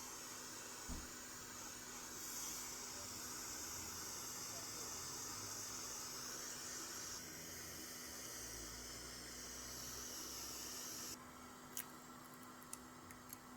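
Hot-air heat gun blowing with a steady hiss as the phone's back glass is heated to soften its glue, cutting off suddenly about eleven seconds in. A faint knock about a second in and a few small clicks near the end.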